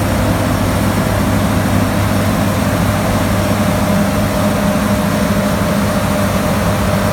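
Steady, loud drone of a heavy farm-machinery diesel engine running under harvest load, with an unchanging hum and whine.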